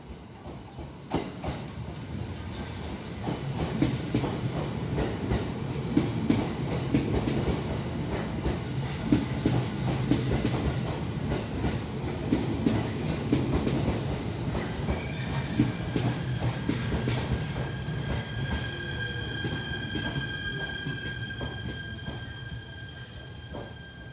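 Shinano Railway SR1 series 100 six-car electric train rolling slowly past along the platform: a steady rumble with irregular clacks from the wheels over rail joints and points. About halfway through, a high steady squeal from the wheels joins in.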